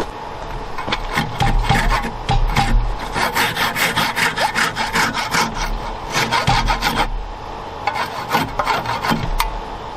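Hand saw cutting through a glued-in wooden dowel to trim it flush, in quick back-and-forth strokes. The sawing pauses about seven seconds in, then a few more strokes follow.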